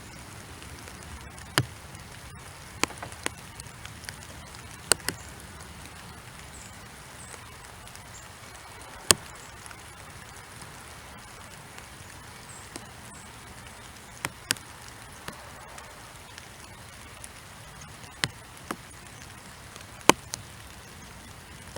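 Soft rain falling, a steady hiss, with irregular sharp taps of single drops striking a hard surface close by, about fifteen of them.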